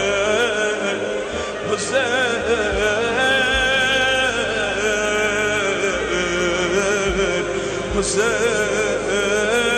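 Religious-style chant: a singer holds long, wavering, ornamented notes over music, with a few deep drum beats.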